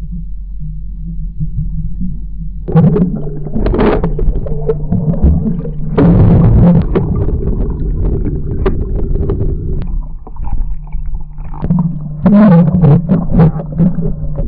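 A steady low mechanical hum, with irregular bursts of rattling, clattering noise over it from about three seconds in.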